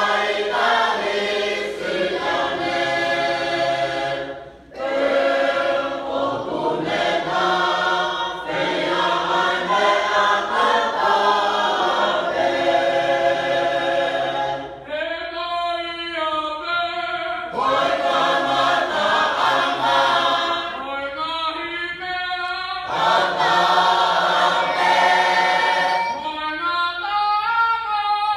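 Tongan youth choir singing a hiva usu, an unaccompanied chanted hymn in several voice parts. The singing breaks off briefly about four and a half seconds in. Later it thins a few times to fewer voices with a wavering pitch before the full group comes back in.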